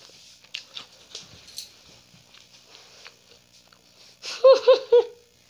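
Beagle giving three short, high yips in quick succession about four seconds in, begging for a snack, after a few seconds of faint scuffing and clicks.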